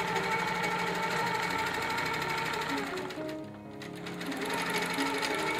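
Quilting machine stitching rapidly and steadily over background music; the stitching drops out for a moment about three seconds in, then picks up again.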